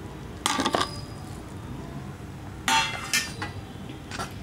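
Fork clinking against a bowl while stirring beaten egg with spices, in two short bursts of quick clicks, about half a second in and near three seconds, and one more tap near the end.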